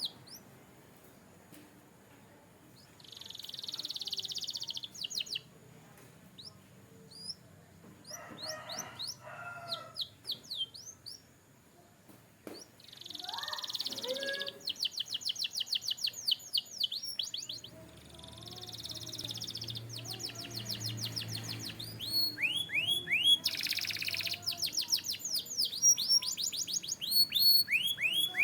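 Domestic canary singing: phrases of rapid high trills and rolls alternating with fast runs of repeated falling whistled notes, separated by short pauses. A few lower warbled notes come in about a third of the way through, and the song is louder near the end.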